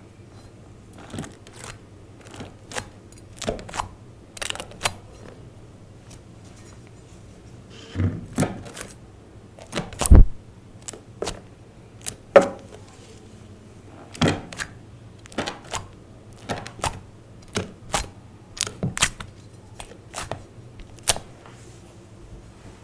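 Slime being squished and folded by hand, giving irregular sharp clicks and pops of trapped air, the loudest about ten seconds in.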